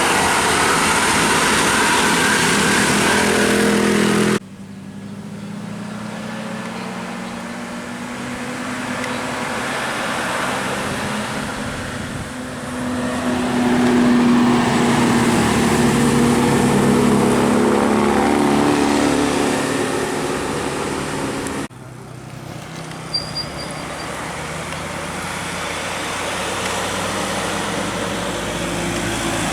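Road traffic, with large vehicles such as buses and trucks passing with their engines running. It comes in three cut-together stretches that change abruptly about 4 seconds in and again about 22 seconds in. The sound swells loudest about halfway through as a vehicle goes by.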